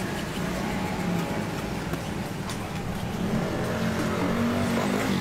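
Street traffic: a motor vehicle engine running close by, a steady low hum whose pitch wavers in the second half.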